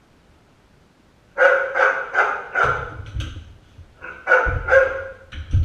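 A dog barking in short repeated barks: about four in quick succession, a brief pause, then two or three more. A low rumble sits under the later barks.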